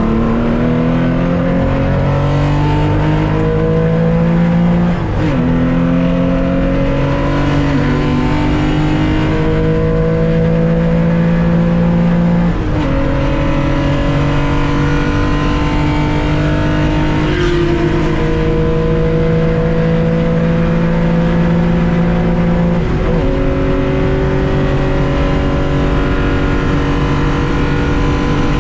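Air-cooled 2.0-litre flat-six of a 1965 Porsche 911 at full throttle, heard from the cockpit. Its pitch climbs steadily through each gear, with three upshifts, each a sudden drop in pitch: about 5, 13 and 23 seconds in.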